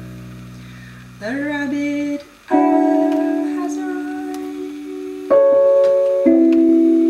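Hohner electronic keyboard playing slow sustained chords, three struck in turn and each left to ring and fade. About a second in, a woman's voice sings a short wavering note that bends upward.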